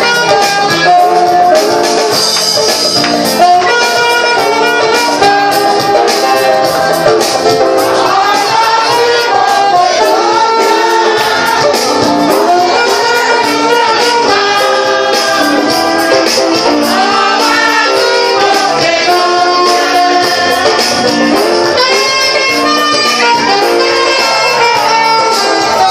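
Live saxophone playing a melody over backing music, with singing voices joining in.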